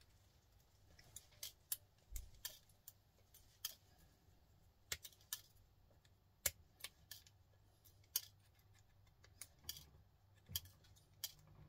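Faint, irregular small metal clicks and snaps as gold-plated pins are pulled one by one out of a computer cable connector, sometimes two clicks close together, with gaps of up to a second or more between them.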